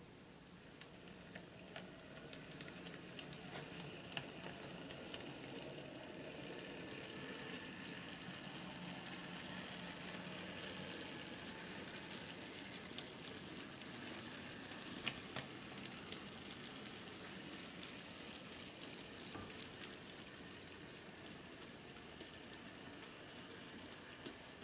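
Model train running past on its track: the wheels give a steady rattle with many small clicks over the rail joints. It grows louder toward the middle as the locomotive passes close by, then fades slowly as the cars and caboose go by.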